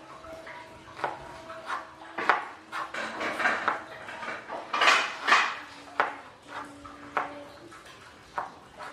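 Kitchen dishes and metal utensils clinking and knocking irregularly, a dozen or so strikes, several leaving a short ringing tone, with some scraping and rubbing in between.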